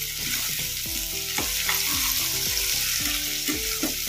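Chopped cabbage frying in oil in a kadai, sizzling steadily while a steel spoon stirs and scrapes through it.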